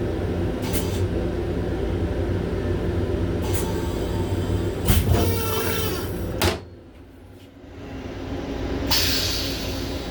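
Steady running rumble of a Long Island Rail Road M7 electric railcar heard inside its small restroom, with occasional knocks and a louder rattling clatter about halfway. Right after the clatter the noise cuts off suddenly to much quieter, and a hiss then builds back up.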